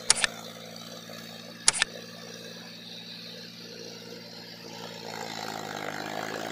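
John Deere 5050D tractor's three-cylinder diesel engine running steadily while pulling a rotavator through a flooded field, growing louder near the end as it comes closer. Two sharp double clicks cut through early, about a second and a half apart.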